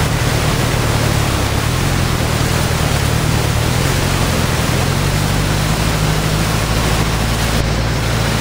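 Off-road Jeep YJ and Chevy Blazer engines idling, a steady low hum under a loud, even rushing noise.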